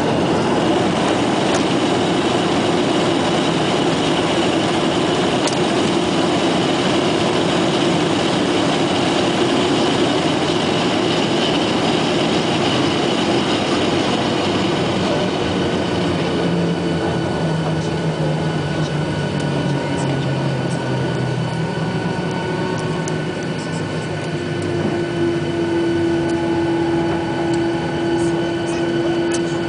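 Jet airliner's engines and airflow heard inside the cabin during the landing rollout: a loud rushing noise that eases about halfway through as the plane slows, leaving a steady engine hum with several held whining tones.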